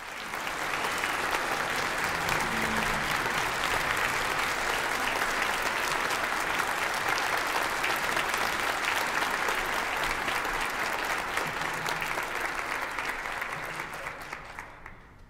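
Concert audience applauding, a steady clatter of many hands clapping that dies away over the last couple of seconds.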